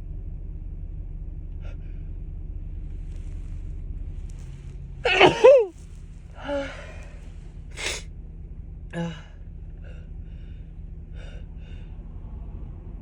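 A woman's single loud allergic sneeze about five seconds in, its voice falling in pitch, followed by three short, softer breaths or sniffs, over a steady low background rumble.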